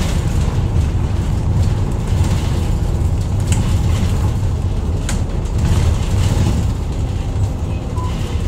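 Isuzu Erga Mio medium-size diesel bus running, heard from inside the cabin as a steady low engine and road rumble. Two short sharp clicks come about three and a half and five seconds in.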